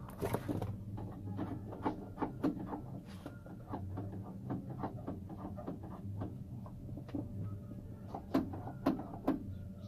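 Irregular small clicks and taps of hand work on the car door's inner handle and lock hardware as a screw is driven in and the parts are handled: several clicks a second at first, sparser in the middle, with a few sharper clicks near the end, over a steady low hum.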